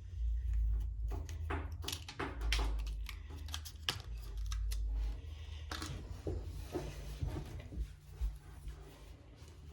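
Small plastic toy pieces and packaging handled on a table: a run of sharp clicks, taps and rustles with low handling bumps, thinning out after about seven seconds.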